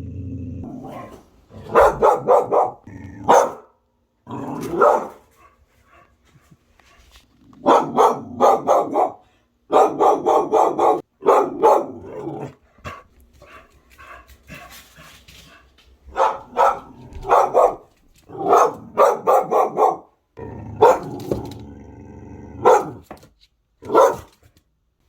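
Young pit-bull mix dog barking at a ceiling fan in quick runs of three to five loud barks, again and again, with short pauses between runs.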